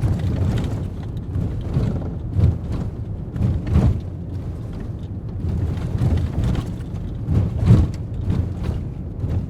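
Ford Raptor pickup truck running with a steady low rumble and uneven louder surges, the strongest about four seconds in and near the end.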